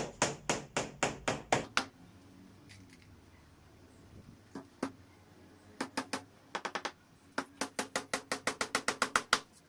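Hammer driving nails into wooden siding boards on a plywood base: runs of quick, sharp strikes, about four or five a second, with a pause of a couple of seconds in the middle and a long fast run near the end.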